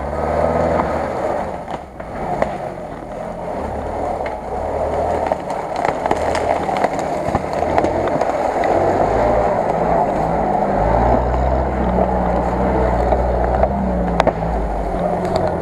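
UAZ-469 engine running at low revs as the four-by-four crawls along a muddy forest track, under a steady rushing noise. The engine grows louder about eleven seconds in as the vehicle comes closest and passes.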